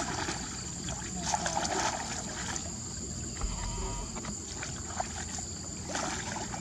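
Water trickling and sloshing, with scattered light knocks and clicks.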